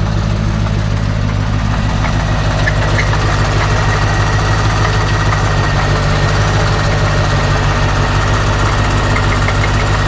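C4 Corvette's tuned-port-injected V8 idling steadily with the hood open, with a rapid knock under the running. The owner calls it knocking terribly and says it barely wants to idle; a friend suspects a failed lifter.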